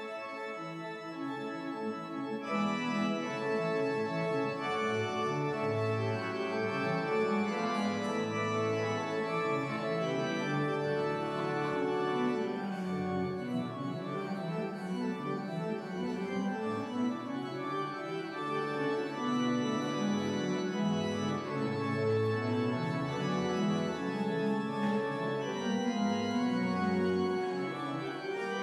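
Church organ playing sustained chords over a moving bass line, getting louder about two and a half seconds in: organ music played as the congregation leaves at the end of the service.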